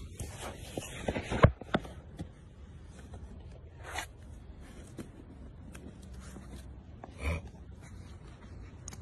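Rustling and scraping against a handheld recording device's microphone, with several sharp knocks in the first two seconds and short louder rustles about four and seven seconds in.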